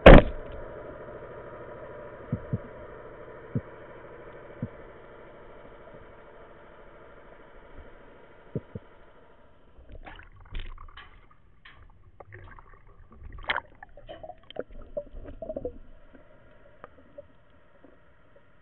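Band-powered speargun firing underwater with a sharp, loud snap at the very start, over a steady underwater hum; a few small knocks follow. From about ten seconds in, irregular splashing and gurgling as the diver breaks the surface.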